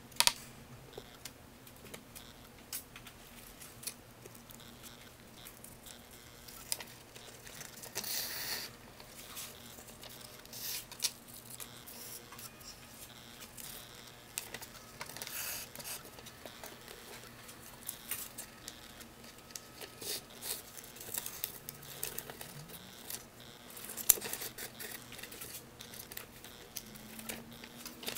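Hand-sewing a paper signature with waxed thread: scattered small clicks and paper rustling, with three short rasps as the thread is pulled through the holes in the paper.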